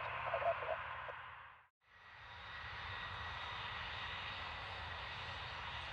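Turbofan engines of a taxiing jet airliner: a steady rushing noise with a faint high whine. The sound fades out and back in at an edit about a second and a half in.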